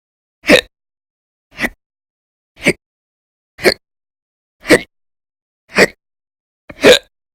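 A woman's loud, violent hiccups, seven in a row at about one a second, each short and sharp, with silence between. They are part of a chronic hiccup attack that goes on for many hours.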